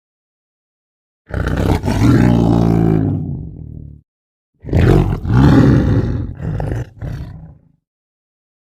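Deep, drawn-out calls of a large animal: one long call that sinks in pitch and fades, then a second call broken into several shorter parts.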